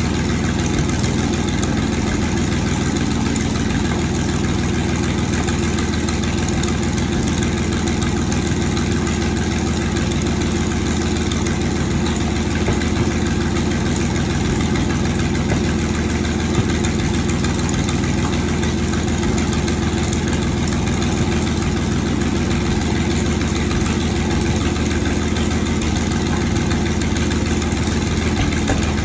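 Panther Ausf A tank's engine idling steadily at low revs, a constant deep mechanical running sound with no revving.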